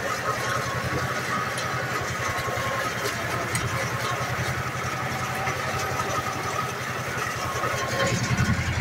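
Ursus tractor's diesel engine running steadily with a fast, even low pulse while it pulls a rotary hay tedder through the cut grass.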